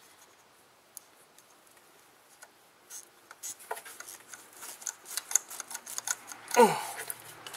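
Hands prying at plastic and rubber parts around the spark plug wires under the intake manifold of a VW 2.0L engine: a rapid run of small clicks and rattles, then a short, loud squeak that falls steeply in pitch near the end.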